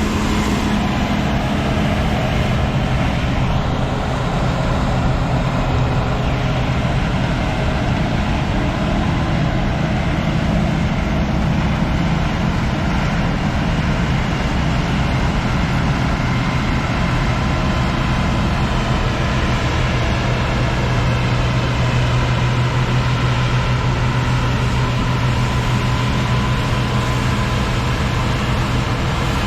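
Claas Lexion 420 combine harvester running steadily while harvesting wheat: a constant mechanical drone with a steady low hum.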